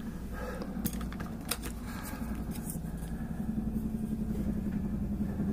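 Steady low mechanical hum, with a few light clicks in the first three seconds.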